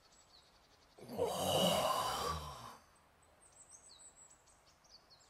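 A person's long breathy sigh, about two seconds, starting about a second in. Faint high chirps sound in the background.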